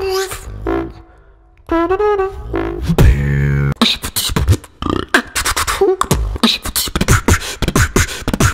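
Human beatboxing: mouth-made percussive hits and clicks mixed with hummed or sung pitched notes. There is a short pause about a second in and a deep bass hum around three seconds in, then a fast, dense run of percussive sounds.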